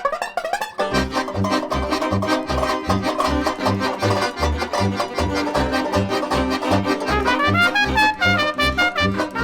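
Background jazz music with brass over a steady beat of about two a second.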